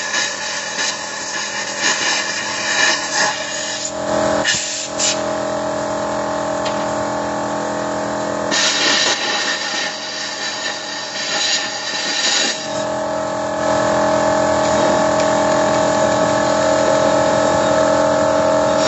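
Toyota Innova engine running steadily under an open bonnet during a carbon-cleaner engine flush, with bursts of hiss twice. About two-thirds of the way through, the note steps up and gets a little louder.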